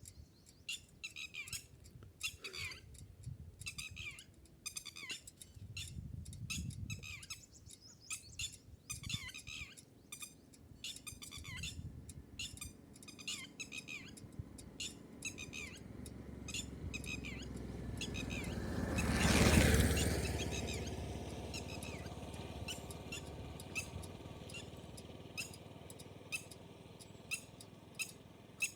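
Wild bird chicks cheeping in quick, repeated high peeps, thicker in the first half and sparser later. About two-thirds of the way through, a rushing noise swells to a peak and fades away.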